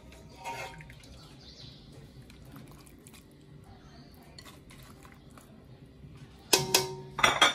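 Soft sounds of food being moved about in a serving dish, then near the end two sharp clinks of a serving spoon against the ceramic dish, each with a brief ringing.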